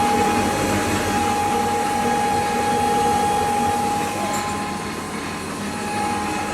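A 3 HP single-phase maize grinder running steadily: a constant mechanical rush with a steady high whine that fades about five seconds in.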